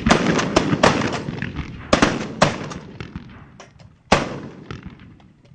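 Several shotguns firing in a ragged volley, shots coming thick and overlapping at first, then thinning out, with a last loud shot about four seconds in.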